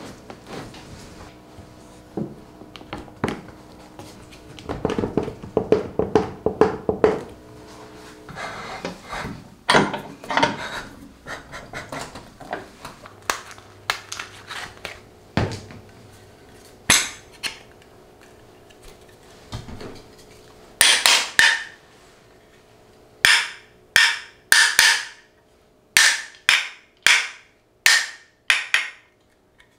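Wooden boards being handled and set down with scattered knocks and scrapes. Then a small hammer strikes the wooden body of a Japanese hand plane about nine times in quick sets, the usual way of setting the plane's blade; these taps are the loudest sounds.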